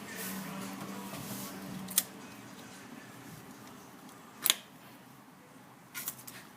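Three sharp separate clicks, about two seconds in, near the middle and near the end, as tools or engine parts are handled during spark plug work, over a faint steady hum.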